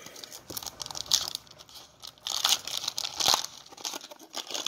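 Foil wrapper of a trading-card pack crinkling and tearing as it is opened by hand, in irregular crackles that are busiest from about two seconds in.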